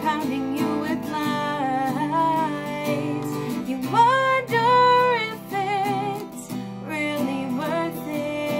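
A woman singing long held notes with vibrato over acoustic guitar accompaniment; her voice climbs to its highest, loudest notes about four seconds in.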